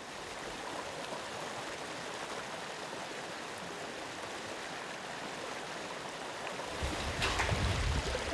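Steady rushing of flowing river water. About seven seconds in, it grows louder and deeper, with splashing as people wade through a shallow fish-pass stream.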